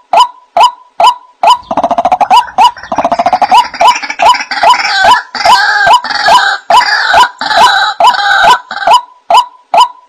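Looped lure-call recording of rice-field rails and crakes: one call note repeated evenly, close to three times a second, joined from about a second and a half in until near the end by a busier chorus of trilling, gurgling higher calls.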